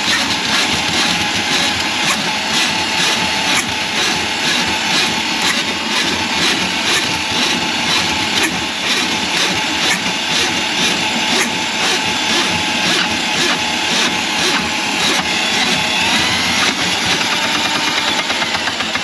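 Electric drain-cleaning machine running steadily, its motor spinning the cable into a plugged kitchen sink drain, with regular knocking throughout. The motor's pitch dips briefly near the end.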